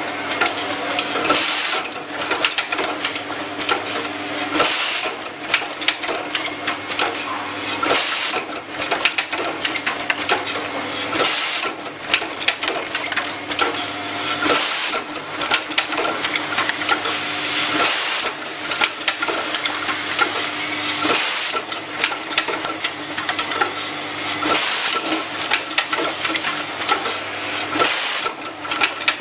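Automatic keyboard-switch assembly and test machine running: a dense, rapid clatter of small mechanical clicks over a steady machine hum, with a louder rush of noise about every three and a half seconds as it cycles.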